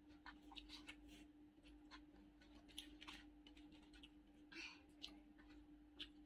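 Faint eating sounds: scattered light clicks and scrapes of a spoon working through biryani in a paper bucket, with a brief rustle of paper about four and a half seconds in, over a faint steady hum.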